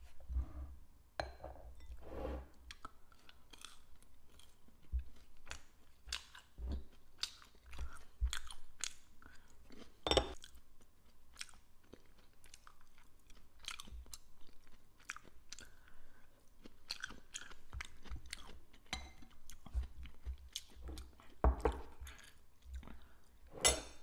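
A person chewing food close to the microphone: a run of small irregular crunches and clicks, with a few louder sharp clicks, the loudest about ten seconds in and just before the end.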